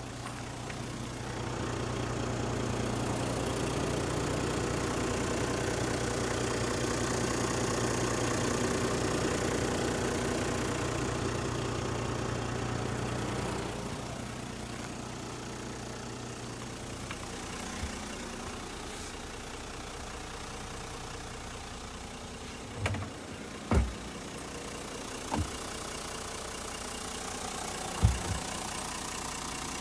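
Hino Liesse II's 1HD-FTE straight-six turbo-diesel idling steadily, a little quieter from about halfway on. Four sharp knocks come in the last third, the loudest near the end.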